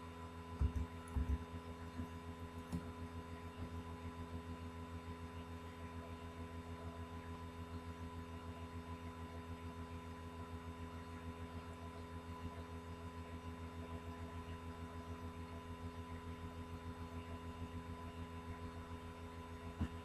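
Faint, steady electrical hum from the recording setup, several unchanging tones with a fast, even low pulsing underneath; no speech.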